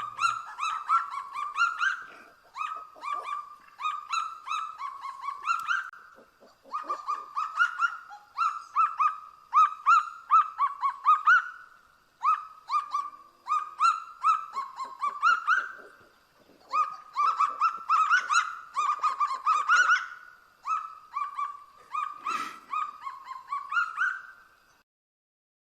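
Kagu calling: groups of quick, loud notes, each group stepping up in pitch, repeated again and again with short pauses between them, stopping shortly before the end.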